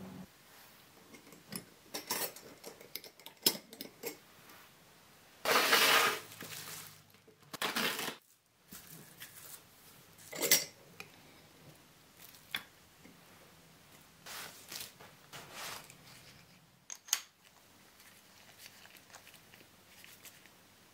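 Scattered handling sounds: cling film being pulled out and smoothed down, with small clicks and clinks of tools. The loudest is a short burst of crinkly noise about six seconds in.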